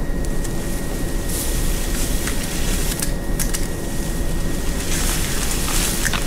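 Yew branches rustling, with a few short clicks as hand pruners snip off yew tips, over a steady low rumble.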